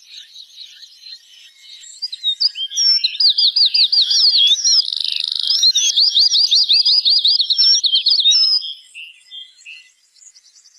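Pet songbird singing. Scattered high chirps lead into a loud, fast song of quickly repeated looping whistled notes, several a second, which stops about eight seconds in and gives way to softer chirps.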